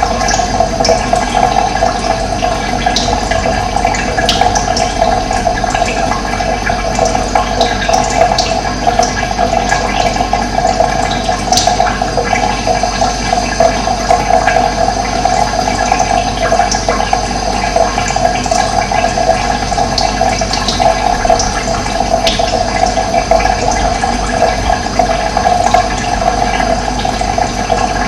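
Steady rush of running water, with short high bird chirps here and there.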